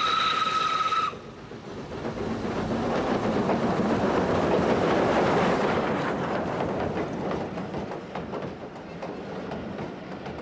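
Old SPS-class inside-cylinder 4-4-0 steam locomotive's whistle, a steady blast that cuts off about a second in. Then the locomotive passes close by, loudest midway, and its train of coaches follows, wheels clicking over the rail joints and fading.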